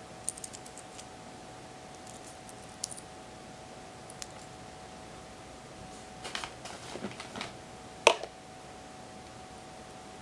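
Light metallic clicks and rattles from a gold-tone stainless steel mesh watch strap and its clasp being handled and worked, with a cluster of small clicks about six seconds in and one sharp click about eight seconds in.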